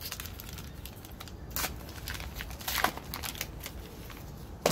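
A baseball-card pack's wrapper being torn open and crinkled by hand: an irregular run of crackles, with a couple of louder ones about one and a half and three seconds in.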